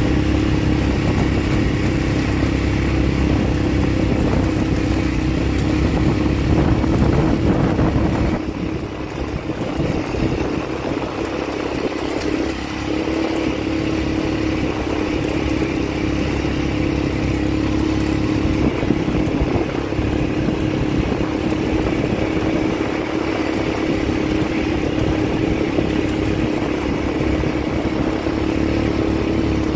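ATV engine running steadily on a dirt trail. It gives a constant engine note over a rough, noisy haze, and the level dips a little about eight seconds in.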